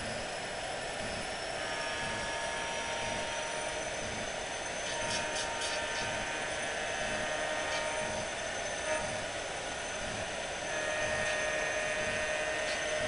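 Soundtraxx Tsunami sound decoders in O scale Atlas ALCO RS-1 model diesel locomotives playing diesel engine sound as the consist runs by, a steady throbbing mechanical sound with a few held tones over it. It gets a little louder about eleven seconds in.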